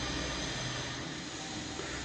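Steady background noise with a low rumble and no distinct knocks or taps.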